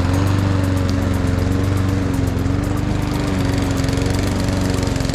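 Petrol rotary lawn mower engine running steadily at an even speed.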